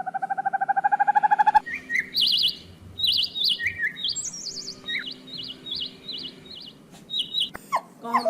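A rapidly pulsing tone, rising slightly in pitch, that cuts off abruptly about a second and a half in. It is followed by a songbird chirping: short trilled phrases repeated over and over.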